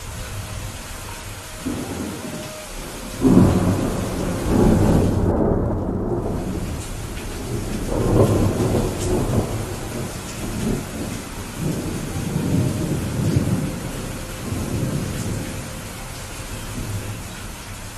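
Steady rain with a long roll of thunder: the thunder breaks in sharply about three seconds in and rumbles on in deep swells for over ten seconds before dying back to the rain.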